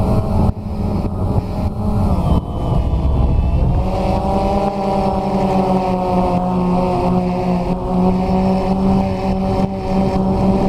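DJI Phantom 2 quadcopter's electric motors and propellers humming, heard up close from a camera mounted on the drone. The pitch dips and climbs back as the motor speed changes about two to four seconds in, then holds steady.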